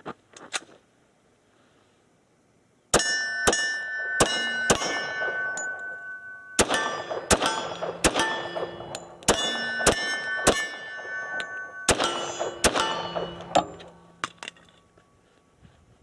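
HK Mark 23 .45 ACP pistol firing a rapid string of about fourteen shots, starting about three seconds in and stopping near the end, with metallic ringing clangs hanging on after many of the shots.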